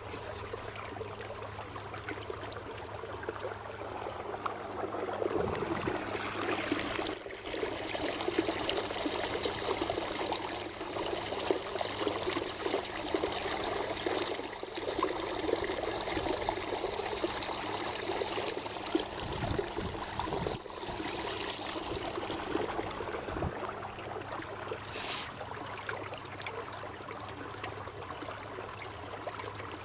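Water rushing and splashing in an electric trolling motor's prop wash and along the hull of a 12-foot Old Town Guide 119 canoe under way, over the motor's steady low hum. The water noise swells from about five seconds in and eases after about twenty seconds.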